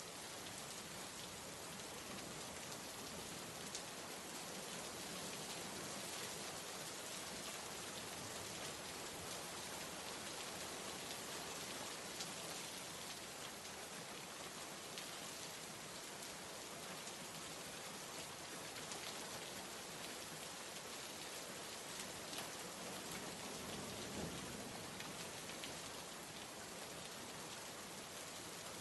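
Steady rain: an even hiss with occasional sharper drop ticks.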